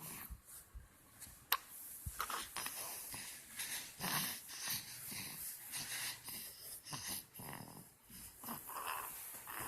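A sleeping child snoring, a run of uneven noisy breaths, with a sharp click about a second and a half in.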